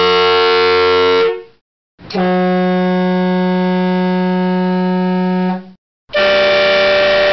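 Three electric-compressor air horns sounded one after another, each a steady blast with a clean cutoff. First a dual-trumpet chrome Yankee Air Horn Deluxe ends about a second in. Then a single-tone air horn holds one low pitch for about three and a half seconds, and a chrome tri-tone train air horn starts its three-note chord near the end.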